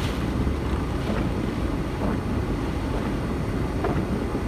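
Steady low rumble of a car driving slowly, engine and road noise mixed with wind on the microphone.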